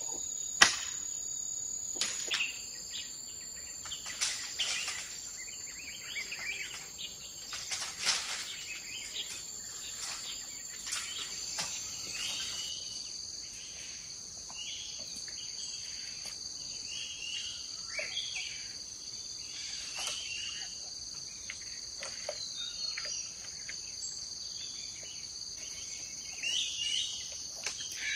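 Steady high-pitched insect buzzing, crickets or cicadas, with birds chirping now and then. A sharp knock about a second in and a few more knocks in the first ten seconds.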